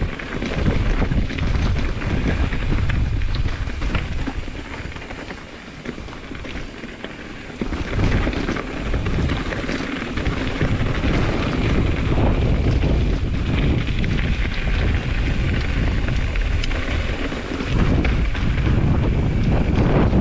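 Strong wind buffeting an action camera's microphone, a heavy rumbling rush that eases for a few seconds near the middle and then comes back hard.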